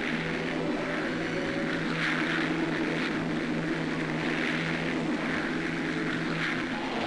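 Light single-engine propeller aircraft in flight, its engine droning steadily.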